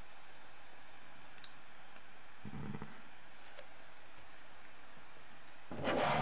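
A few faint clicks over a steady hiss, then the sheet of drawing paper rustles loudly near the end as it is picked up and moved.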